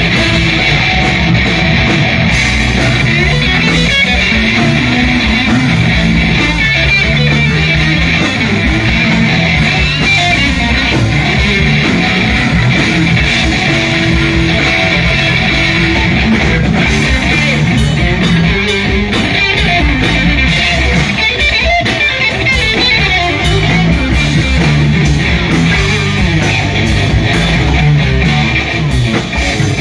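Live blues band playing an instrumental passage with no singing, led by electric guitar over a steady bass line.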